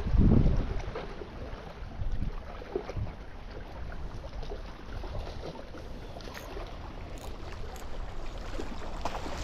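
Wind buffeting the microphone, loudest in the first half-second, over a steady wash of wind and small waves against the shoreline rocks.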